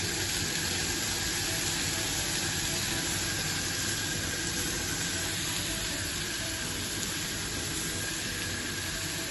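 Shrimp sizzling steadily on an oiled grill pan over high heat.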